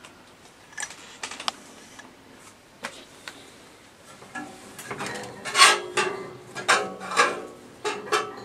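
A series of sharp mechanical clicks and metallic clatter. It is sparse at first, then from about halfway through it turns louder and busier, with short ringing strokes.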